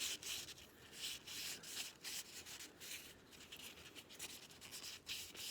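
Soft, scratchy rubbing strokes, about two a second, as shellac polish is worked onto a small turned oak knob.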